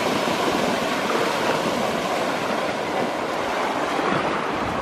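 Many swimmers running through shallow sea water and diving in, a steady rush of splashing with the sea's surf.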